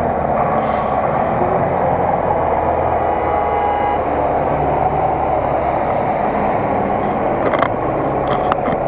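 GAZ-66 truck's V8 petrol engine running steadily under load as the truck drives slowly through tall grass and passes close by, with a couple of brief clicks near the end.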